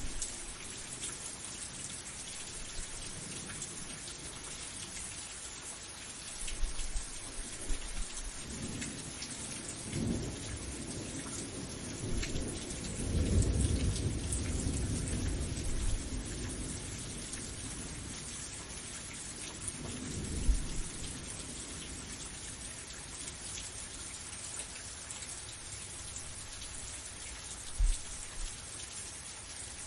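Steady rain hissing, with several low rolls of thunder; the longest and loudest comes about halfway through. A short, sharp low thump comes near the end.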